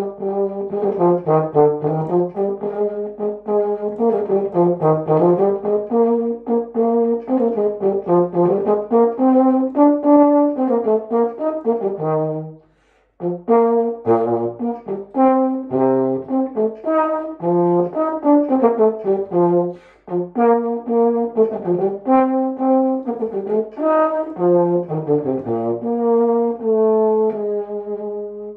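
Unaccompanied solo melody on a silver-plated upright-bell valved brass instrument. It is played in flowing phrases that rise and fall, with two short breath breaks partway through.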